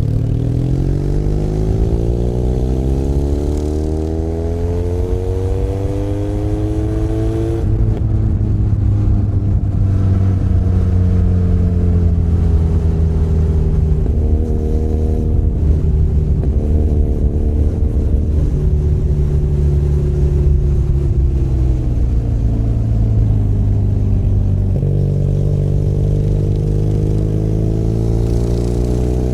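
Benelli Leoncino 500 Trail's parallel-twin engine under way, pitch climbing as it accelerates for about seven seconds, then dropping at a gear change. It holds a steadier speed with the pitch slowly falling, then picks up again near the end.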